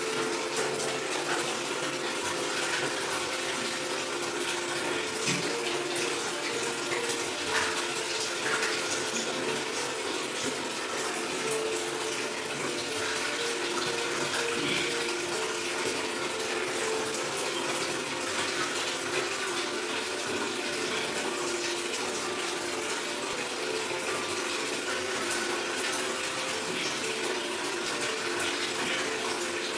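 A steady rushing noise, like water running, with faint held low tones underneath.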